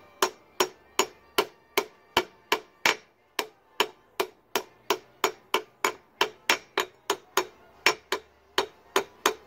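Steady, light hammer taps on a punch driving a new core plug into the cast-iron block of a Toyota 22R engine, about two to three metallic taps a second. The taps go around the plug's edges to seat it evenly.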